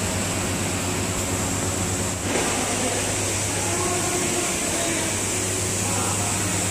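Steady workshop background noise: a constant low hum with a thin high whine and hiss, with a slight shift about two seconds in.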